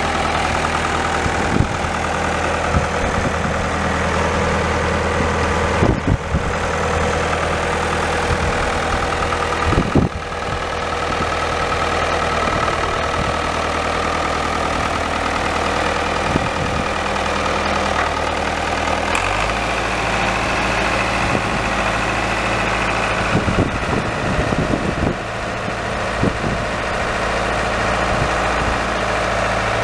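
John Deere 2120 tractor's four-cylinder diesel engine running steadily at idle, with a couple of sharp knocks in the first third. About two-thirds through, the engine note changes as the tractor moves off.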